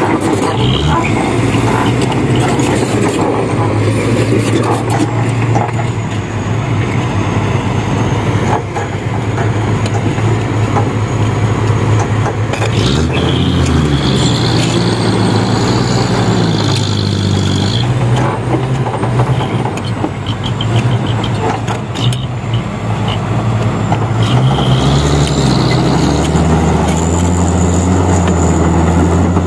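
Heavy diesel engines of a Komatsu crawler bulldozer and a Mitsubishi Fuso dump truck running under load as the dozer pushes the overloaded, bogged-down truck. The engine note keeps shifting in pitch, most clearly a little before halfway and again near the end.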